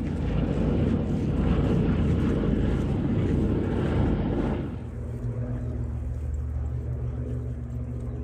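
Piston-engined propeller aircraft passing overhead, a rough, noisy engine sound; about five seconds in it gives way to a quieter, steadier low hum.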